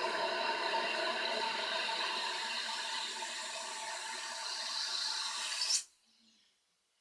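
Newly installed toilet fill valve (ballcock) hissing and whistling steadily as it refills the tank. About six seconds in it shuts off sharply, with a brief rising squeal as it closes: the tank is full.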